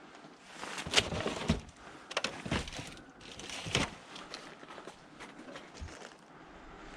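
Irregular rustling and short knocks from something being handled or moved, the sharpest about a second in.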